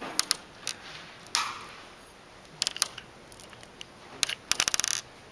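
Small hard coloured balls clicking as they are set down on a wooden tabletop and rattled together in a palm: scattered sharp clicks, then a quick flurry of clicks near the end.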